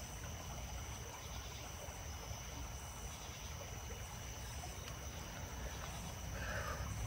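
Faint, steady background hiss and low rumble with a thin, unchanging high-pitched tone running through it.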